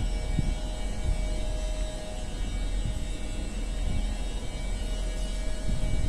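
RER A MS61 commuter train standing at the platform, its onboard equipment giving a steady hum: several constant tones over a low rumble, with a few faint knocks.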